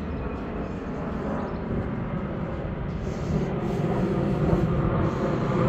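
Steady low rumbling noise that grows gradually louder, with no clear pitch or rhythm.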